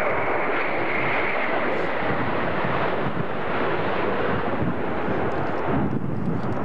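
Air France Concorde's four Olympus 593 turbojets, loud steady jet noise as the aircraft moves along the runway, with a high whine that fades about three seconds in.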